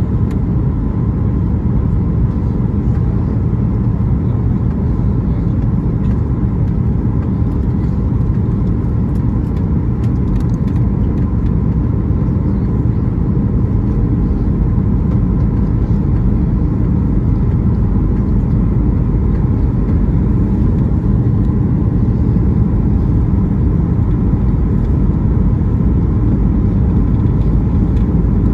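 Steady low rumble of a jet airliner's cabin in flight: engine noise and rushing airflow heard from inside, unchanging throughout.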